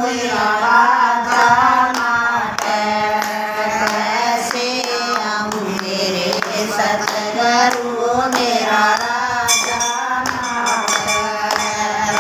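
Women singing a Hindi devotional bhajan together without instruments, the melody held in long sung lines, with hand claps keeping time.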